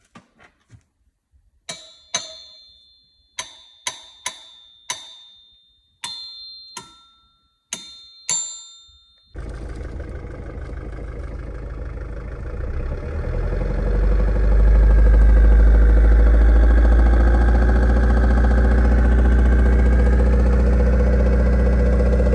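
About ten light strikes on metal, each ringing briefly with a clear, bell-like tone. This is a check of how engine parts ring while hunting for an engine knock. About nine seconds in, a steady engine-like running sound starts abruptly and grows louder a few seconds later.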